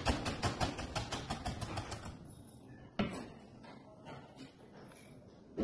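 Chef's knife rapidly chopping cabbage into julienne strips on a plastic cutting board, about six strokes a second, stopping about two seconds in. A single knock follows about three seconds in.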